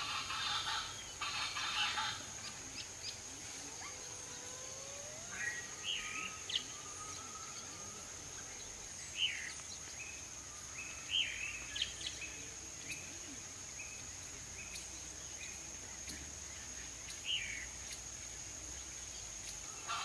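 Chaco chachalaca calling, a loud harsh chorus for about the first two seconds, then short scattered bird chirps over a steady high whine.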